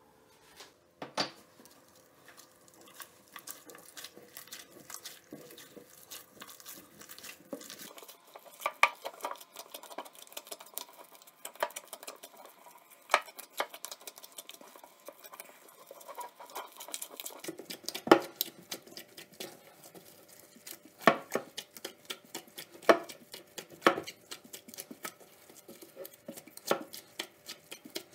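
Buttery bun dough being kneaded by a gloved hand in a glass bowl: a fast, irregular run of sticky squelches and small clicks, with a few sharper knocks against the glass in the second half.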